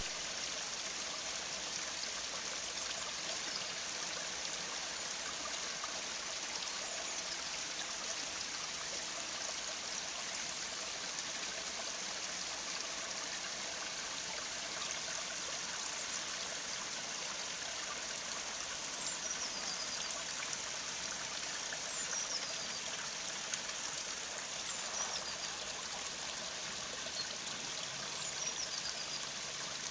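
A small garden stream trickling and splashing steadily over low rock cascades.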